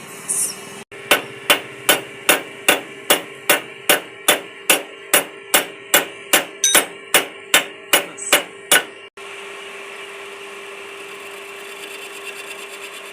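A hammer striking in a steady rhythm, about twenty even blows at roughly two and a half per second, then stopping; a steady hum runs underneath.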